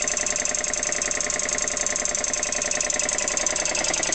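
Vintage Dunlop multi-stage air compressor running steadily, driven by an electric motor, with a fast, even pumping beat.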